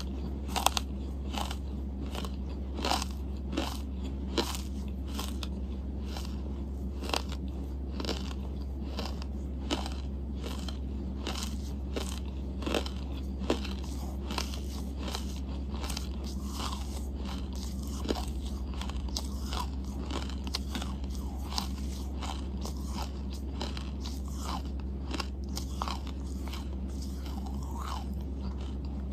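Close-miked chewing of edible charcoal: many short, crisp crunches and crackles, coming thick and fast for the first few seconds, then sparser. A steady low hum sits underneath.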